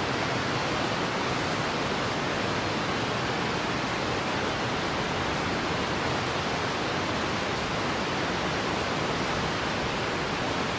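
Steady, even outdoor rushing noise, unbroken and without distinct events.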